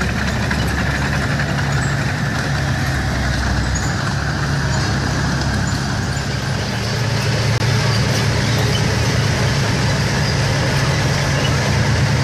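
Tank engines running with a deep, steady hum over a noisy mechanical rumble, louder from about seven seconds in as a heavy tank drives up.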